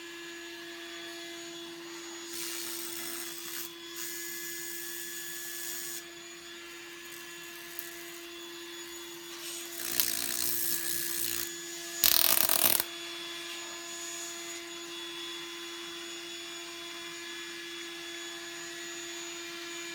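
Spark gap of a homemade Tesla coil powered by microwave oven transformers, firing in several harsh buzzing bursts over a steady hum; the loudest and shortest burst comes about twelve seconds in. This is the run in which the coil's capacitors blew out.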